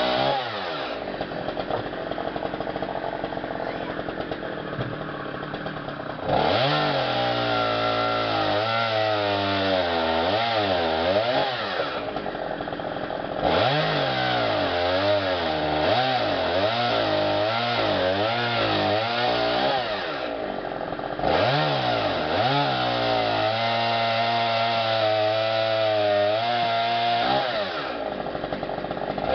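Chainsaw engine running hard through several cuts in wood, its pitch wavering up and down under load. Between cuts it drops back to a quieter, lower running: about a second in, and again around twelve, twenty and twenty-eight seconds in.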